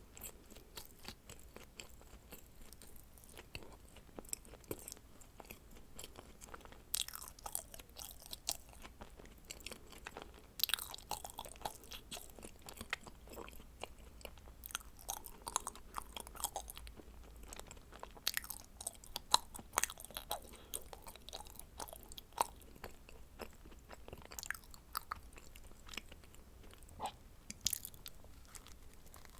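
A person chewing and biting into dacquoise cookies, with many small, sharp crunches and clicks and a few denser clusters of louder crunching.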